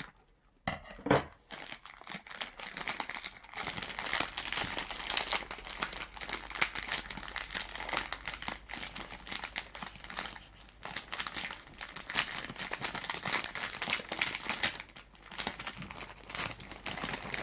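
Plastic snack bag crinkling and crackling as it is pulled and torn open by hand, with a sharp snap about a second in and a brief lull near the end.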